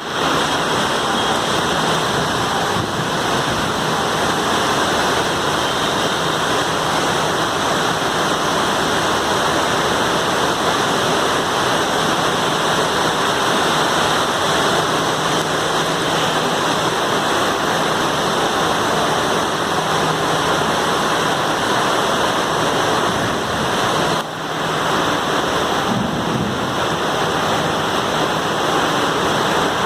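Rain falling steadily, a dense even hiss that dips briefly once, about three-quarters of the way through.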